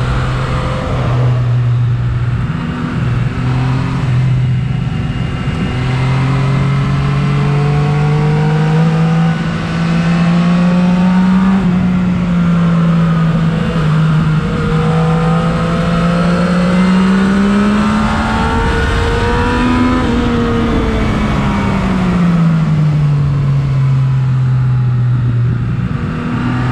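Yamaha MT-09's inline three-cylinder engine running through an aftermarket Akrapovic exhaust while riding at moderate, fairly steady revs. The pitch rises slowly over the first half, climbs briefly about two-thirds of the way through, then falls back as the bike eases off.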